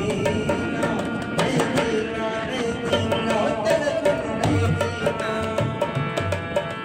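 Background music with a steady drum beat and melodic instruments.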